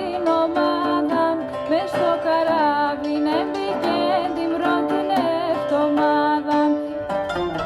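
Background music: a plucked string instrument with a singing voice over it.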